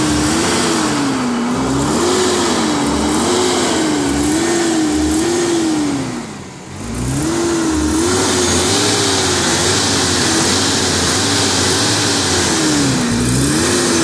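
Toyota pickup's 22R four-cylinder engine revving hard under load, its revs rising and falling over and over, with one deep dip about halfway through before it picks up again.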